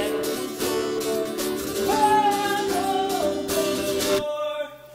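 Music: a voice singing held, gliding notes over acoustic guitar, which stops about four seconds in.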